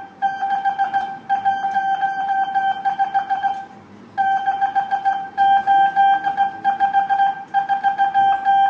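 Morse code tone, hand-keyed on a telegraph key, sending numeral code groups. A steady tone of about 800 Hz is switched on and off in dots and dashes, with short pauses between groups; the longest pause comes about four seconds in.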